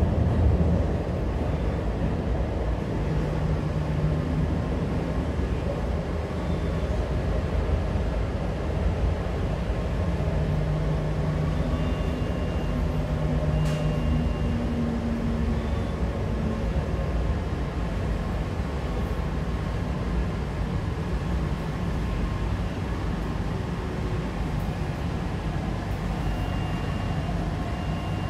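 Inside an MTR C-Train electric multiple unit on the move: a steady rumble of wheels on rail, with faint short whines from the traction motors now and then.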